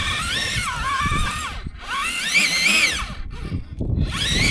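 RC rock crawler's electric motor and geared drivetrain whining, the pitch rising and falling with the throttle and stopping briefly twice as the throttle is released, with low crunching of the tyres and chassis on rock.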